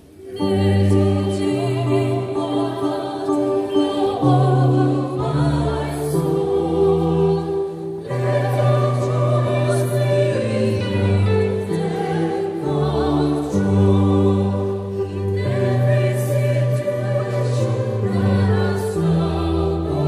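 Mixed church choir singing a hymn in parts, with electronic keyboard accompaniment holding low sustained notes. The singing enters just after a brief lull at the start.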